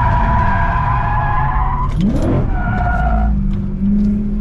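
BMW street car being drifted, heard from inside the cabin: tyres squealing in steady high tones over loud engine and road noise. About halfway through the engine revs up, then it holds a steady note near the end.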